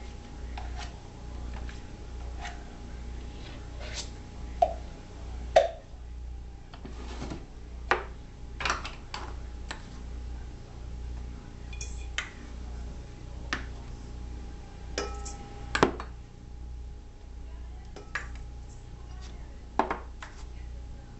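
Irregular metal clinks and knocks of a KitchenAid stand mixer's stainless steel bowl and attachments being handled, about a dozen strikes, over a steady low hum.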